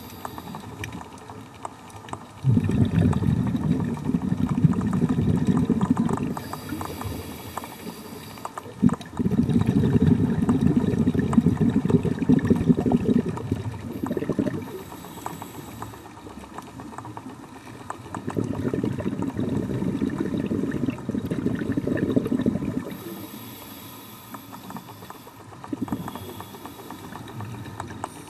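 A scuba diver breathing through a regulator, heard underwater: a rumble of exhaled bubbles lasting a few seconds, about every eight seconds, four times, with a faint hiss of inhalation in the quieter gaps between.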